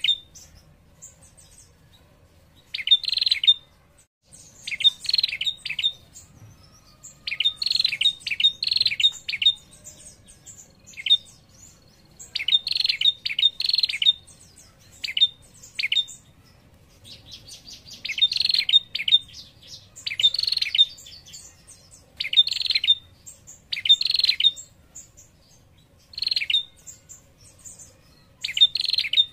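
Female prenjak calling its rapid rattling 'ngetir' call: short bursts of fast high ticking notes, repeated every second or two. This is the call used to lure male prenjak into answering.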